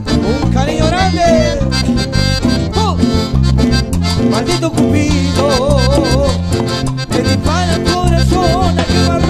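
Live band playing an instrumental passage of a Latin dance song: a wavering melodic lead line over steady bass and percussion.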